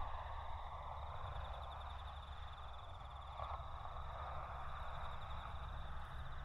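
Faint steady background noise: a low rumble and a hiss, with a thin high-pitched whine throughout and no distinct event.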